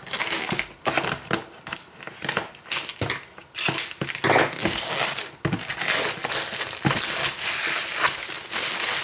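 Clear plastic shrink-wrap being peeled and pulled off a cardboard box: a run of irregular crinkling and crackling with many sharp little snaps.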